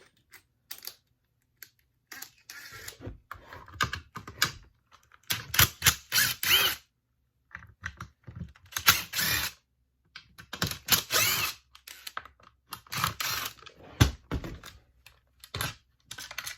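Bursts of rapid clicking and rattling, repeated several times with short pauses, as hand tools and small parts of a STIHL BG50 blower are worked during disassembly.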